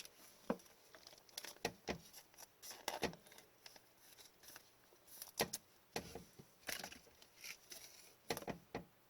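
Trading cards being handled: scattered soft taps, clicks and light rustles.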